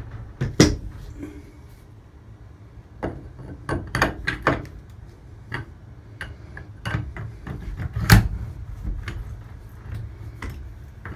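Irregular clicks and knocks of objects being handled and moved about, over a low steady rumble, with one louder knock about eight seconds in.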